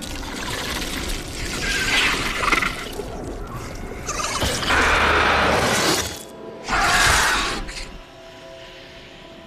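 Film sound effects for a monster attack over dramatic music: loud crashing, rushing blasts about two, five and seven seconds in, the longest and loudest around five seconds. After about eight seconds it settles into quieter held music tones.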